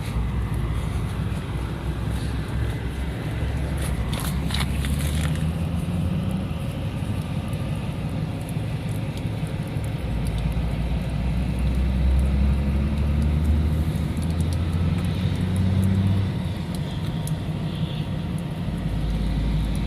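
Low rumble of motor vehicles that swells and fades, loudest a little past the middle. There is a short burst of sharp clicks and scraping about four seconds in.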